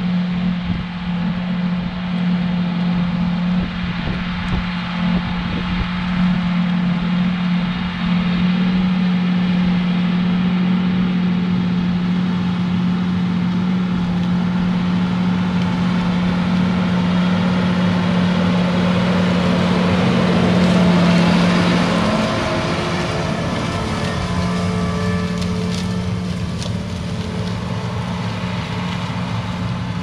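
John Deere 8245R tractor's six-cylinder diesel engine running steadily under load while pulling a Case IH chisel plow. It grows louder as it comes close and passes at about two-thirds of the way through, then its pitch and level drop slightly. Light clinking and rattling from the plow come in near the end.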